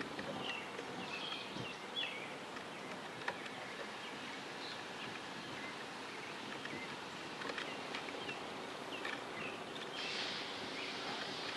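Faint outdoor hush with small birds chirping while a 1924 Baldwin 2-10-0 Decapod steam locomotive rolls slowly. About ten seconds in, a steady hiss of steam starts from its open cylinder cocks.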